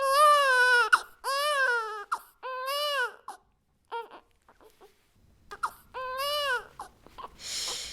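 Newborn baby crying: a string of short, arching wails, each under a second, broken by brief pauses.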